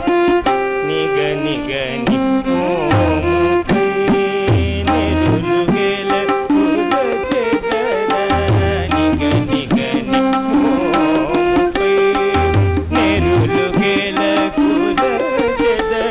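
Live Carnatic devotional music: a voice and violin carry a gliding melody over tabla, with deep bass strokes on the bayan that bend in pitch, and a regular high tick keeping time.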